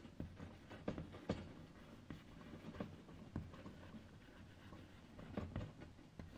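Chalk writing on a chalkboard: faint, irregular taps and short scrapes of the chalk strokes as letters are written.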